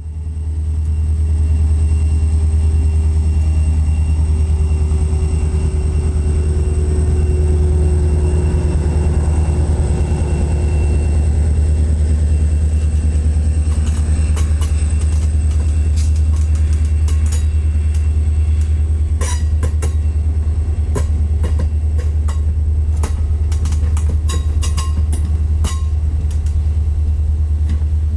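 Train running, a loud steady low rumble, with a fainter tone that slides slowly down in pitch over the first ten seconds. From about halfway in, a growing run of sharp clicks and clanks.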